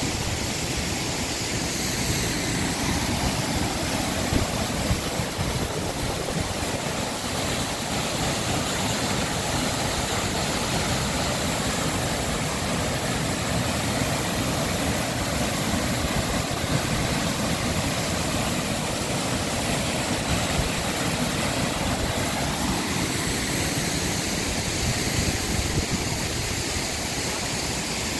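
Steady rushing noise of a tall waterfall pouring onto the rocks at its base, with the creek running below.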